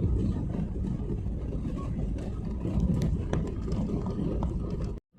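Airliner cabin noise after landing: a steady low rumble from the engines and the aircraft rolling on the ground, with a few faint clicks and knocks. The sound drops out briefly just before the end.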